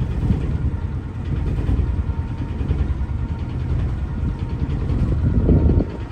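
Sailing yacht's engine running under way, a steady low rumble that swells briefly near the end.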